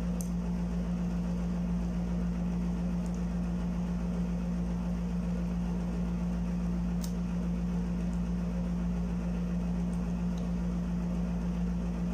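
Steady low hum of a room air conditioner, with a few faint clicks of a plastic spoon against a plastic sundae cup.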